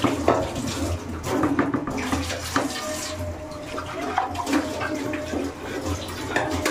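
Chicken curry sizzling and bubbling in a nonstick kadai as it is fried in its own oil and masala without water, with a few light clicks and knocks from the wooden spatula and pan.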